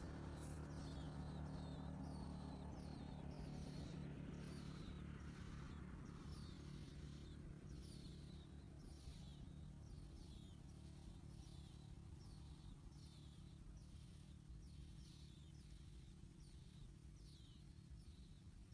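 A small bird giving short, high, falling chirps over and over, about one a second, over a faint steady low hum.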